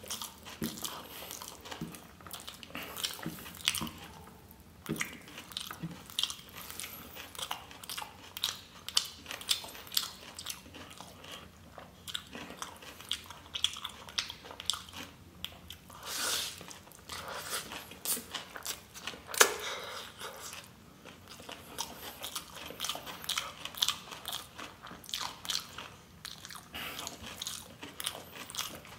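Close-miked chewing of a handful of spicy chow mein noodles, wet and smacking, with many sharp mouth clicks all through. There is a longer breathy rush about sixteen seconds in.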